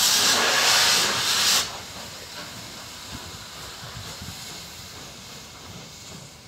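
Steam locomotive venting steam in a loud hiss that cuts off suddenly about a second and a half in, followed by a quieter low rumble as the engine moves off slowly.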